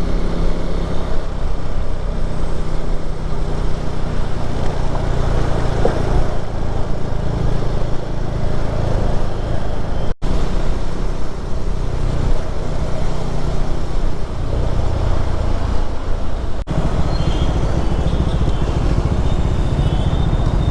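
KTM Duke 390 single-cylinder engine running as the freshly serviced motorcycle is ridden along, a steady low rumble mixed with wind and road noise, with a brief gap about ten seconds in.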